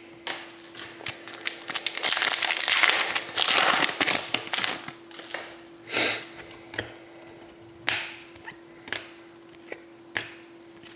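Trading cards and their packaging being handled: a few seconds of dense rustling and crinkling, then scattered light clicks and taps as cards are slid and set down. A faint steady hum runs underneath.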